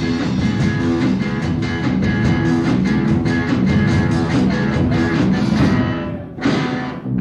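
1980s Greek rock recording: a band playing guitar and drums to a quick steady beat, dropping out briefly about six seconds in and again just before seven seconds, then coming back in.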